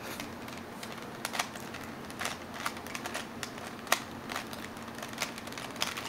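Plastic 3x3x3 Rubik's cube being turned by hand, its layers clicking and rattling in quick irregular turns as an algorithm to solve the top face is run through, with one sharper click about four seconds in.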